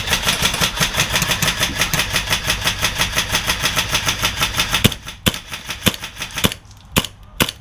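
Airsoft gun firing a long full-auto burst at about a dozen shots a second, then about a second before the end it breaks off into six or so single shots a fraction of a second apart.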